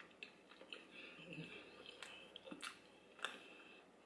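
Faint chewing of soft food, palusami and breadfruit, with small wet mouth smacks and clicks scattered through.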